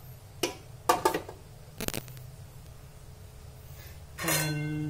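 A stainless steel bowl knocking against an aluminium steamer pot and its perforated tray as it is set inside: a few sharp metallic clinks in the first two seconds, one with a brief ring. A voice begins near the end.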